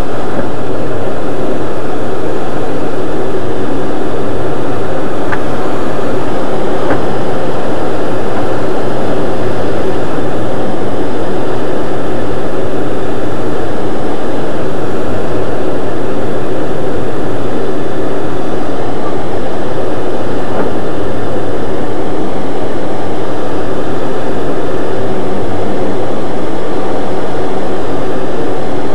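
Steady, loud rush of air over the canopy of an ASK-21 two-seat glider, heard from inside the cockpit in flight. The glider is unpowered, so the noise is airflow alone, with no engine.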